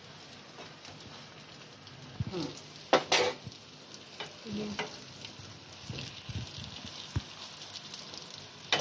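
Spring rolls shallow-frying in hot oil in a pan, a steady sizzle. A metal spoon knocks and scrapes against the pan several times, loudest about three seconds in.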